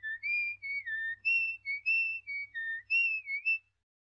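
Someone whistling a jaunty tune: a quick run of short notes, about three a second, that stops about three and a half seconds in.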